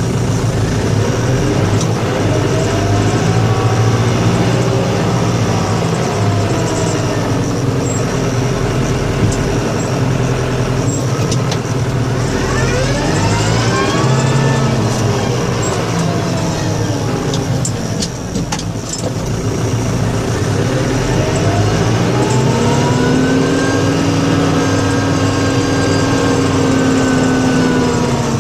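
Snow plow truck engine running, its pitch rising and falling several times as the truck speeds up and slows.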